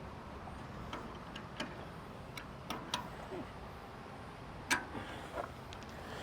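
Scattered metallic clicks and taps of a wrench being worked on the control lever bolts, at irregular spacing, with one louder knock about three-quarters of the way through.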